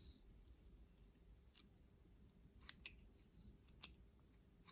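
Near silence with a handful of faint, sharp clicks from small metal parts of the opened resettable fuse being handled.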